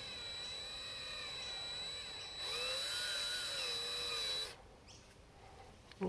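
Cordless drill spinning the shaft of a home-built plastic screw-type honey pump on a dry run, with no honey in it; the motor whine wavers up and down in pitch. It speeds up about two and a half seconds in and stops suddenly at about four and a half seconds.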